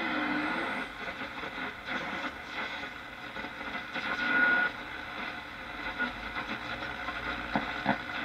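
Shortwave static from a 1937 Philco 37-630 tube radio's loudspeaker as the tuning dial is turned across a band that is nearly dead. A brief whistle comes a little past four seconds in, and a few clicks come near the end.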